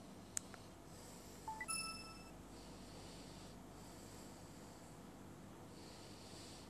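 Faint room tone with a sharp click, then a short electronic chime of rising notes, ending in a held tone, about a second and a half in.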